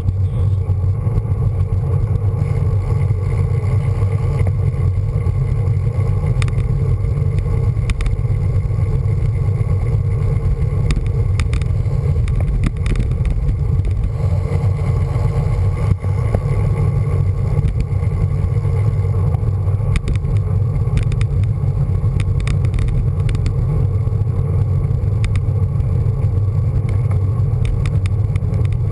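Steady low rumble of wind buffeting the microphone of a handlebar-mounted camera on a moving road bike, with scattered light clicks and rattles from the ride.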